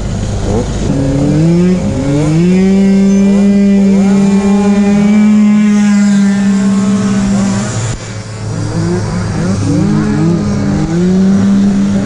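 Several tuned 50cc two-stroke off-road scooter engines revving hard as they race: one note climbs quickly and holds a long, steady high-revving scream, drops briefly about eight seconds in, then a mix of engines revs up and down again.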